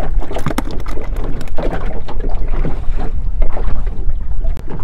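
Wind rumbling on the microphone aboard a small fishing boat, with scattered light knocks and taps as a caught fish is taken off the handline hook.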